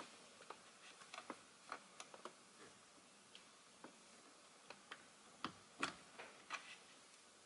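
Faint, irregular small clicks and taps of an Allen wrench probing the release hole at the back of a BMW i8 steering wheel, working against the airbag's spring-loaded clips. Two slightly louder clicks come about five and a half seconds in.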